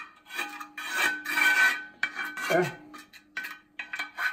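A utensil rubbing and scraping fat over the inside of an unglazed clay sač lid, in a run of uneven strokes: the porous clay being greased so it soaks up fat before its first use.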